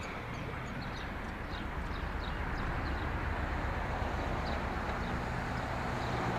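Steady rumble of motorway traffic that grows gradually louder, with small birds chirping over it in the first few seconds.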